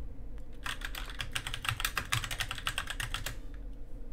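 Typing on a computer keyboard: a quick, steady run of key clicks that starts just under a second in and stops about three seconds later.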